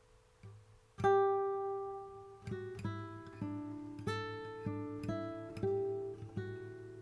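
Music: a plucked acoustic string instrument picks a slow line of single ringing notes, starting about a second in.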